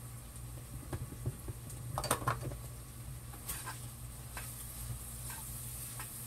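A long metal spoon stirring and scraping sautéing vegetables and sausage in a skillet, with scattered clinks and scrapes against the pan, the loudest about two seconds in, over a faint sizzle.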